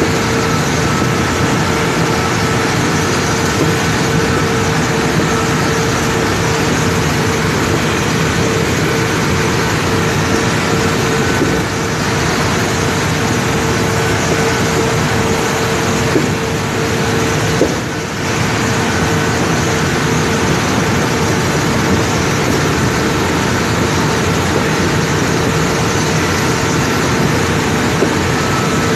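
Loud, steady machinery noise of an aluminium ingot casting line, with a constant mid-pitched hum running through it.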